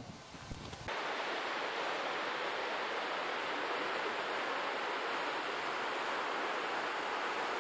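A steady, even hiss that begins abruptly about a second in, after a brief low rumble, and holds at one level.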